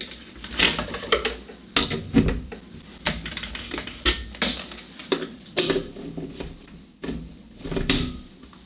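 Mains power plugs being pushed into the outlets of a four-channel DMX dimmer pack, with a series of irregular clicks and knocks as the plugs and cords are handled.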